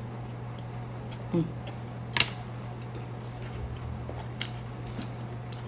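Close-up mouth sounds of someone chewing sushi, with a few sharp clicks, over a steady low hum.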